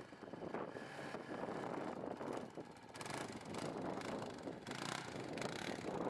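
Polaris Predator 500 quad's single-cylinder four-stroke engine running under throttle during a wheelie run.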